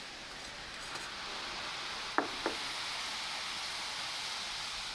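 Boiling water fizzing and foaming up just after baking soda is added to it: a steady hiss. Two sharp clicks come a little after two seconds in.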